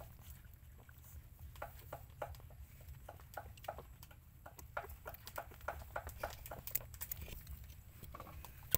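Puppies suckling at their mother dog: a run of short, wet smacking clicks, a few a second, unevenly spaced.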